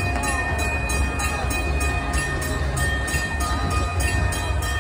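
Railroad crossing warning bell ringing steadily, about three strikes a second, while the wig wag signal is active. A low rumble runs underneath.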